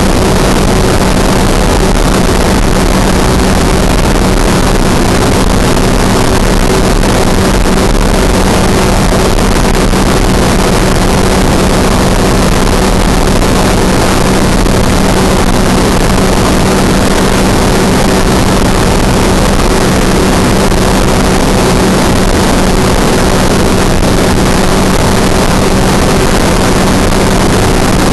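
Ultralight aircraft engine running steadily in cruise, a constant drone under heavy rushing wind noise in the open cockpit.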